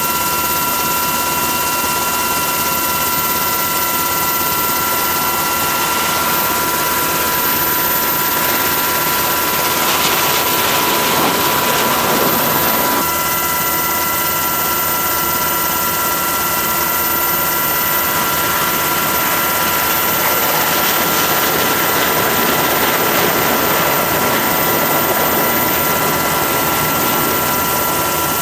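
Steady aircraft turbine noise with a constant high whine, swelling briefly about ten seconds in.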